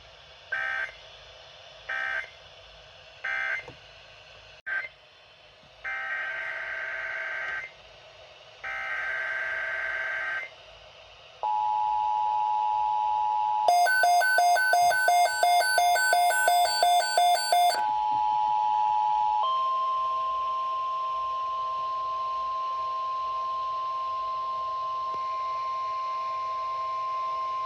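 EAS alert tones between two broadcasts: three short data bursts (the end-of-message code), then two longer screeching SAME data bursts (the header of the next alert), then the steady two-tone EAS attention signal. A loud beeping of about four beeps a second sounds over it for about four seconds, and then the signal changes to a single steady tone like the 1050 Hz NOAA Weather Radio alarm.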